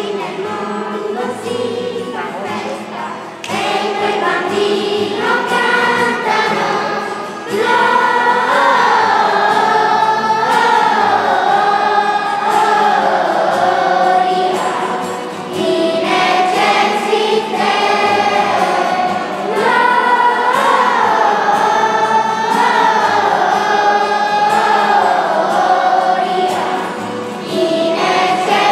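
Children's choir singing a song, growing louder a few seconds in, with short breaks between phrases about halfway through and near the end.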